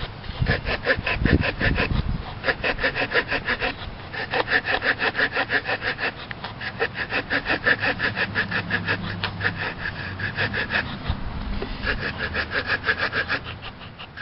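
Victorinox Farmer Swiss Army knife's small wood saw blade cutting through a log in quick, short back-and-forth strokes, about five a second, with a few brief pauses.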